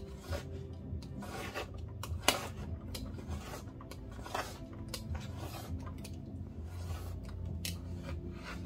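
Metal palette knife scraping and dabbing paint on a palette: irregular scrapes and small taps, with one sharp click a little over two seconds in.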